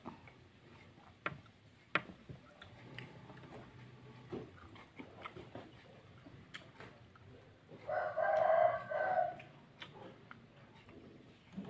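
A rooster crowing once, about eight seconds in, for about a second and a half, over faint scattered clicks and taps.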